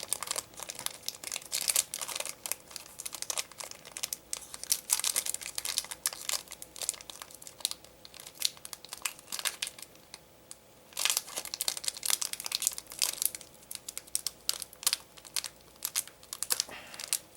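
Crinkling and tearing of a Digimon card game booster pack wrapper being handled and ripped open, a dense run of irregular crackles with a quieter stretch about ten seconds in.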